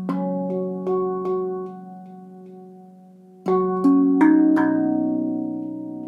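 Tuned steel hand percussion of the handpan and tongue-drum kind, struck by hand: a run of four ringing notes, a pause of about two seconds, then another quick run of four notes that ring on and slowly fade.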